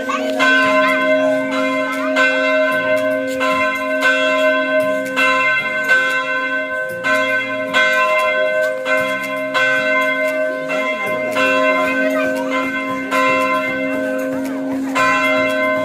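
Church bell ringing, struck repeatedly a little more than once a second, each tone ringing on into the next strike.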